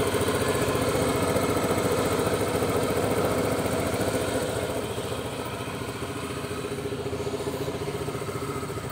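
Fekon Venture ADV150 motorcycle engine idling steadily, with an even fast pulse and no revs.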